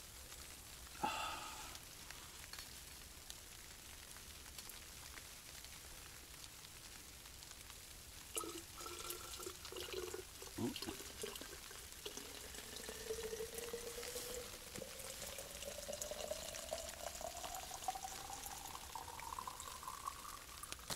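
Liquid being poured steadily into a vessel, the note of the filling rising through the last nine seconds or so as it fills up. Shortly before the pour, a few faint clinks and a single knock.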